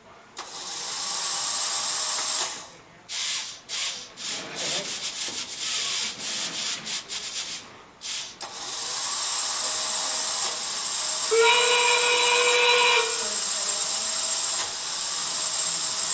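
FTC competition robot's electric motors whirring: a steady run, then a string of short stop-start bursts, then a long steady run. A brief pitched tone sounds about two-thirds of the way through.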